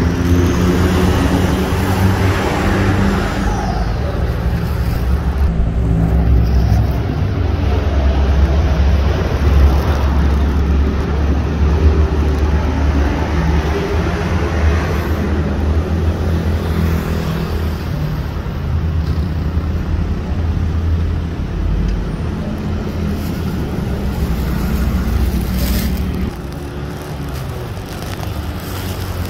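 Road traffic running steadily: a continuous low engine rumble that eases slightly near the end.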